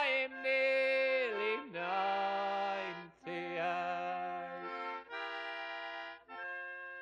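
Music: a free-reed squeezebox playing held chords to close an English folk song, growing a little softer toward the end.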